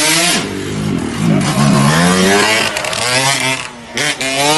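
An engine revving, its pitch rising and falling several times.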